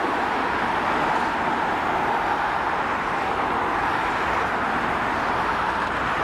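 Jet noise from a Boeing 767-300ER's two General Electric CF6-80 turbofans at takeoff thrust as the airliner climbs away: a steady, even rush of noise with a low rumble beneath.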